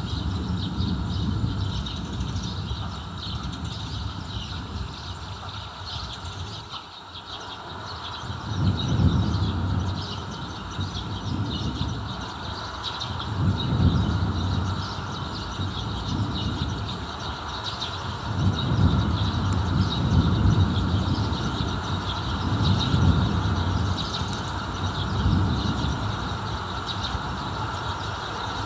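Distant thunder in long, low rolls that swell and fade again and again, with the strongest rumbles in the second half.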